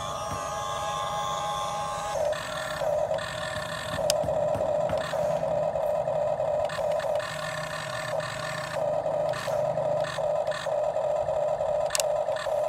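Electric motors of a radio-controlled model excavator whining in short runs, starting and stopping again and again as the machine is worked.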